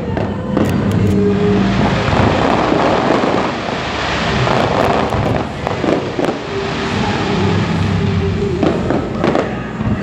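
Fireworks display: a dense, continuous run of crackling and banging bursts from aerial shells.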